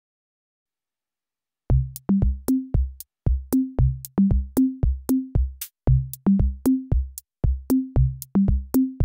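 Background music: an electronic drum-machine beat of deep, pitched kick-drum hits with sharp snaps over them, starting after nearly two seconds of silence.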